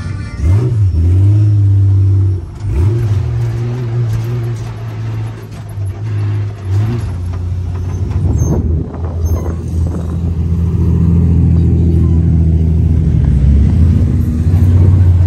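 Off-road vehicle engines running, a loud deep drone with a few quick dips and rises in pitch in the first half, then steadier.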